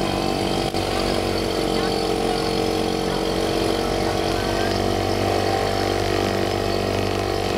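Small Yamaha outboard motor on a bumper boat running steadily at an even speed, heard close to its cowling.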